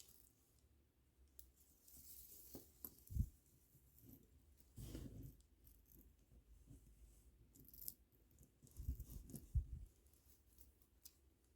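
Faint handling noises of plastic pony beads and string being worked by hand: small scattered clicks and rustles, with a few soft knocks, a pair of them near the end.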